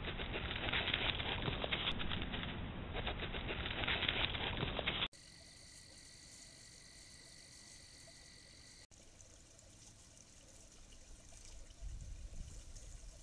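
Loud rustling and crackling in dry leaf litter close to a trail camera's microphone, as an armadillo forages, for about five seconds. It cuts off sharply and is followed by a much quieter stretch with faint, steady high-pitched tones.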